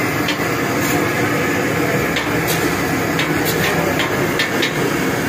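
Masala-battered fish deep-frying in hot oil in a large karahi: a steady loud sizzle over a low rumble, with scattered short clicks and pops.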